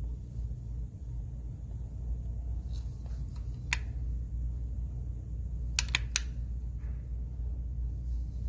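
Steady low hum of room tone, with a single sharp click about four seconds in and three quick clicks around six seconds in.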